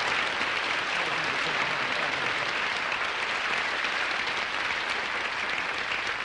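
Studio audience applauding steadily, a dense even clapping that welcomes a performer onto the stage.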